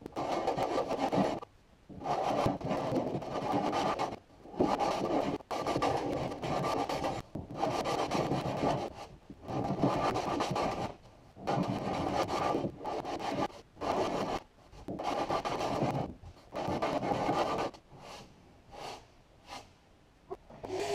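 Small hand block plane shaving along a wooden edge in repeated push strokes, each lasting a second or two with short pauses between. Near the end the strokes become shorter and lighter.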